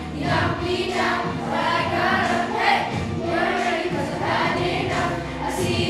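A group of children singing together over backing music.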